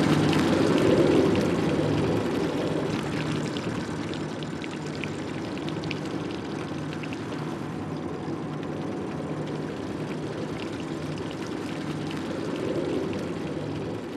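Small boat's motor running steadily with water rushing along the hull, a low hum under a constant wash of water noise.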